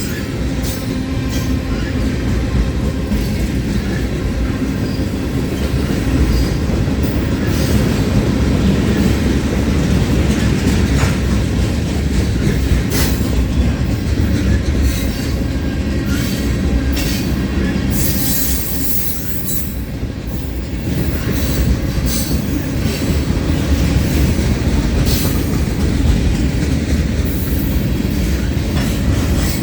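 Freight cars of a long mixed freight train rolling past: a steady low rumble of wheels on rail, with frequent sharp clicks as the wheels cross rail joints.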